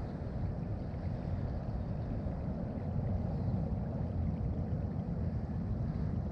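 Wind buffeting the microphone outdoors: a steady, uneven low rumble with no clear events.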